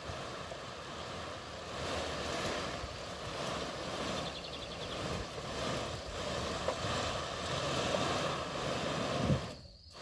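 Loose excavated soil and clods sliding off the back of a car trailer's homemade roll floor of PVC sheeting and tumbling onto a heap, a steady rushing noise with small knocks. A heavier thump comes shortly before the end.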